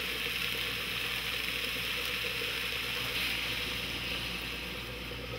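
Chicken, curry spices and vegetables frying in a skillet: a steady sizzling hiss that eases slightly near the end as water is poured in.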